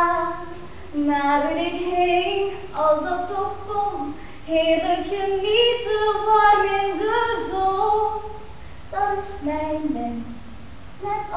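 A woman singing a melody solo in phrases with held, sliding notes, with no instruments heard.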